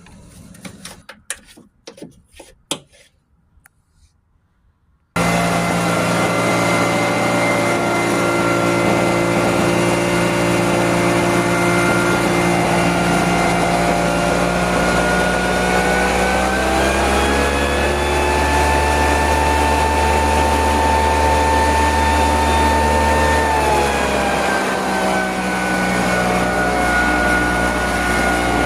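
A few light knocks and clicks, then a motor-driven machine starts up abruptly and runs steadily and loudly, its pitch rising partway through, holding, and dropping back near the end.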